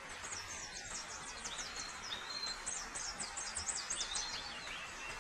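Wild birds chirping in many quick, high notes, with a few longer whistled calls, over a steady background hiss of forest ambience.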